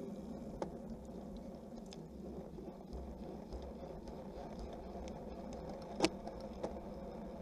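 Road bicycle ridden hard at speed: steady wind and tyre rumble that swells a little as it accelerates, with a couple of clicks, the sharpest about six seconds in.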